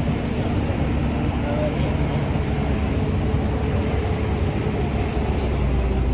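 Busy street ambience: a city bus's engine idling close by with a steady low hum, with cars driving past and passers-by chatting.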